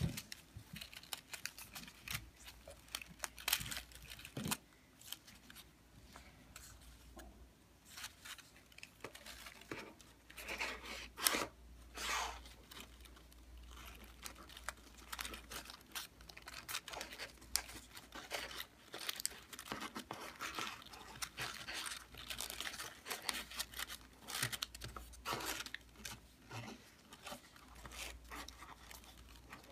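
White paper rustling and crinkling in irregular bursts as hands fold and pull open the petals of a modular origami lotus, louder about ten to twelve seconds in, over a faint low hum.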